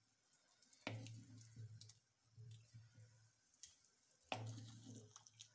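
Faint clicks of a wooden spoon against a clay cooking pot and broth dripping as boiled chicken pieces are lifted out, with a low hum that comes on twice, each time starting with a click.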